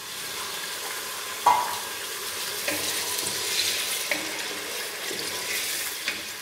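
Raw beef chunks sizzling as they start to fry in hot oil in an aluminium pressure cooker, stirred with a wooden spatula that knocks against the pot a few times. The loudest knock comes about a second and a half in.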